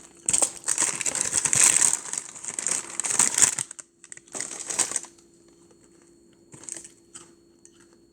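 Plastic packaging of a sleeve of graham crackers crinkling loudly as it is handled and pulled at, in a long spell of rustling and a shorter one about four seconds in, then only a few faint rustles.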